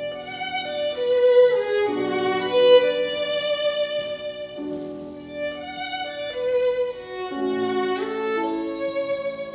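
Solo violin playing a slow, lyrical melody of long, held notes that change pitch every second or so.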